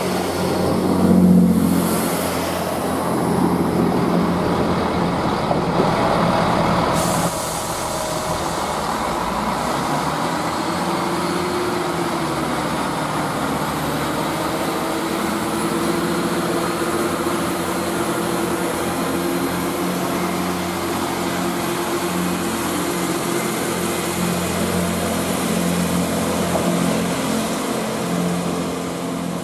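Class 158 diesel multiple units' underfloor diesel engines running as trains pull out: first a unit moving past close by, then, after a sudden change about seven seconds in, another unit's engine note rising as it accelerates and then holding steady.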